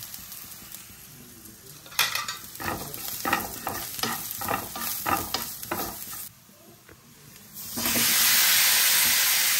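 A spatula stirs and scrapes chilli and turmeric powder into shallots and garlic frying in coconut oil in a non-stick pan, in quick repeated strokes over a light sizzle. Near the end, boiled cassava pieces are tipped into the hot pan and set off a loud, steady sizzle.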